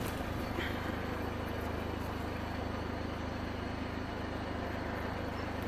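BMW 520d's 2-litre diesel engine idling steadily, heard at the twin exhaust tailpipes.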